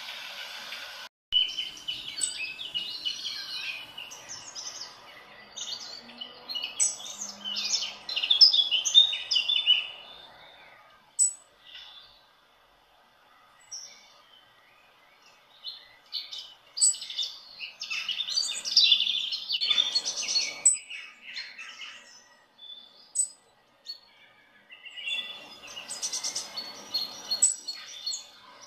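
Small birds chirping and singing in bursts of quick, high notes, with quieter gaps of a few seconds between bursts.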